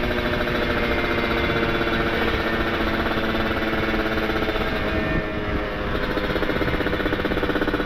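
Kawasaki Ninja RR's two-stroke single-cylinder engine run hard through an ABRT20 aftermarket exhaust while riding, a steady engine note that eases briefly about five seconds in. The rider says this hard running clears out carbon deposits.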